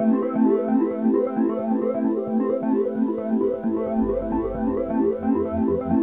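Background music: a synthesizer keyboard tune of quick, evenly repeated notes, with a pulsing bass coming in about two-thirds of the way through.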